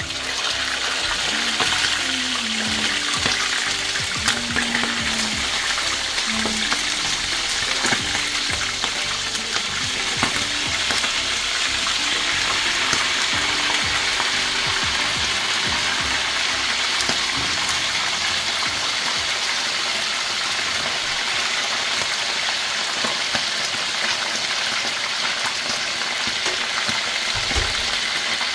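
Pre-boiled chicken pieces frying in hot oil in a pan: a loud, steady sizzle full of fine crackling.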